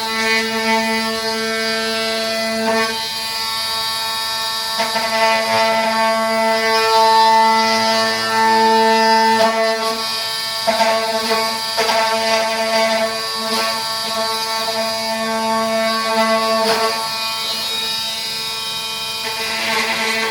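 Oscillating multi-tool running continuously with a steady high buzz, surging and dipping in level as it cuts into a vinyl flooring plank.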